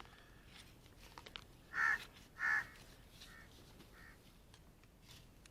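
A crow cawing four times, about two thirds of a second apart: two louder caws about two seconds in, then two fainter ones.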